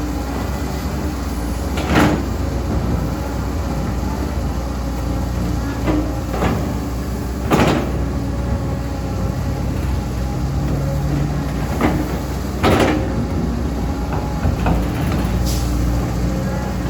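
Caterpillar 320D2 GC hydraulic excavator running steadily while digging, with several sharp knocks from the working machine spaced a few seconds apart.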